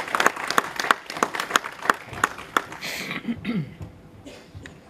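Audience applauding, the separate claps thinning out and dying away about three seconds in, followed by a few low words from a man's voice.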